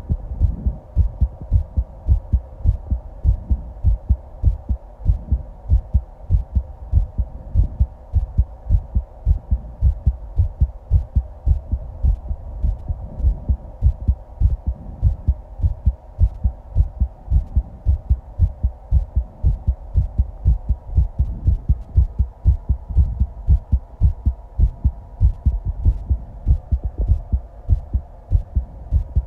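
A person's heartbeat picked up close against the chest: a steady, even rhythm of low thumps, with a faint steady hum underneath.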